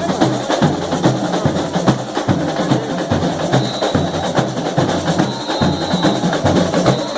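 Samba school bateria playing a dense samba rhythm: low surdo bass drums beating a steady pulse under busy snare drums and small hand percussion.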